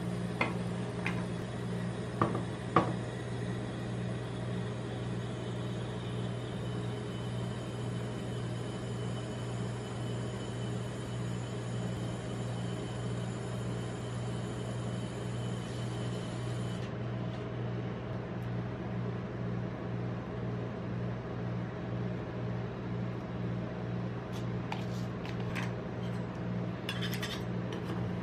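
Steady low hum of a rolled-ice-cream cold-plate machine running, with steel spatulas clinking sharply on the steel plate a few times in the first three seconds and again in a run of taps and scrapes near the end.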